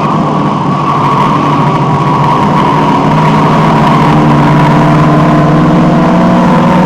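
Alfa Romeo 1750's twin-cam four-cylinder engine running hard on track, heard from inside the car, with its pitch nearly steady and dipping slightly in the first few seconds.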